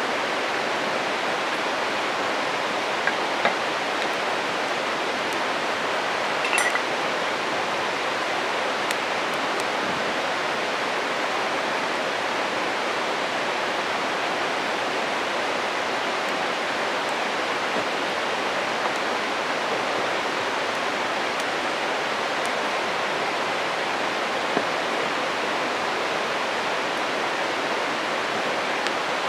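Steady rushing of a flowing stream, with a few faint sharp pops from a burning wood campfire, one of them about six and a half seconds in.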